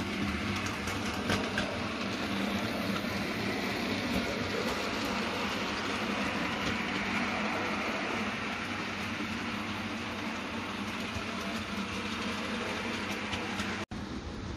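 Model railway goods train running on the layout: a steady rumbling hum of wheels on track, with faint clicks over the rail joints.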